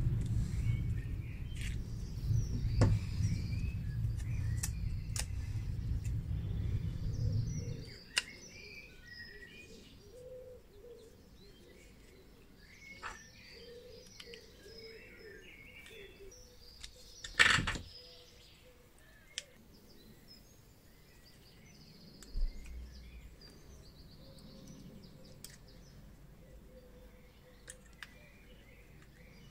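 Birds chirping in the background, with small sharp clicks and taps from pliers and a screwdriver working the metal clips off an old lamp's back plate. A low rumble runs under the first few seconds and cuts off about a quarter of the way through. One sharp knock, a little past the middle, is the loudest sound.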